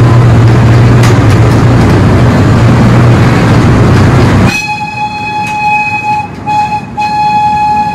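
Miniature park train running through a tunnel: a loud steady rumble with a deep hum, which drops away about halfway in as the train's horn starts sounding, a held tone broken twice by short gaps.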